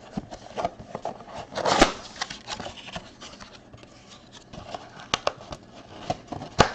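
Cardboard and plastic packaging of a trading-card blaster box being handled and opened: scattered taps, clicks and rustles, with a louder rustle about two seconds in and sharp clicks near the end.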